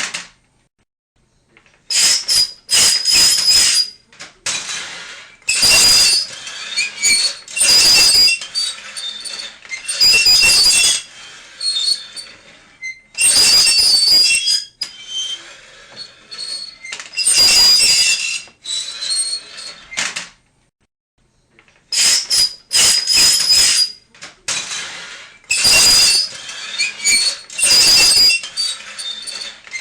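Repeated high-pitched squeals, each lasting about a second and coming every two seconds or so, with a couple of short silent breaks.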